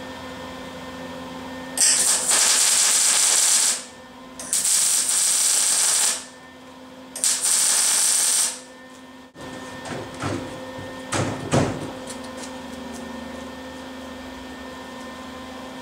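Arc welder tack-welding a steel engine mounting plate to a bicycle frame, in three crackling, hissing bursts of about two seconds or less each with short pauses between. Near the end come a few light knocks.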